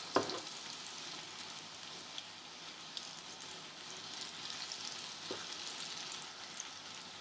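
Small besan pakoras frying in hot ghee in a frying pan: a steady sizzle with scattered crackles. A short knock, likely a utensil against the pan, sounds just after the start and a fainter one about five seconds in.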